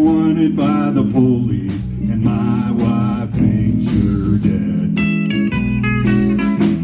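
Live band music: electric guitars and a drum kit playing an instrumental stretch of a country-blues song, with a lead guitar bending notes.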